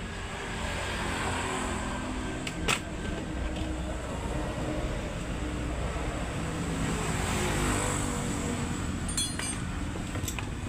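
A motor vehicle engine running, swelling and fading, with a sharp click about two and a half seconds in and a few more clicks near the end.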